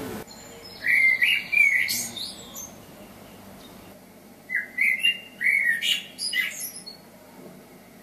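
Common blackbird singing: two phrases, each a low fluting warble followed by a high, squeaky twitter.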